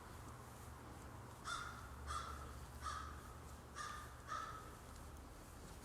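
Five short, harsh bird calls, faint and spaced about half a second to a second apart, over a low steady hum.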